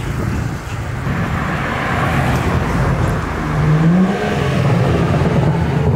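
BMW 435i's turbocharged inline-six with its new exhaust, driving up and past with a steady low rumble that grows louder. The engine note rises briefly as it accelerates about three and a half seconds in.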